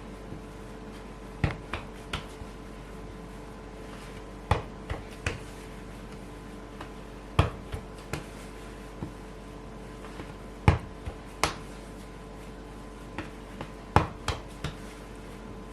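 Light, sharp knocks of hands and bread dough against a work surface while a single-strand braid is shaped, coming in groups of two or three about every three seconds over a steady faint hum.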